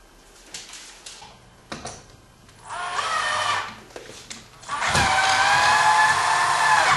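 Cordless drill-driver motor whining as it drives a screw, in a short burst about three seconds in and then a longer, louder run from about five seconds in, fixing a blind bracket.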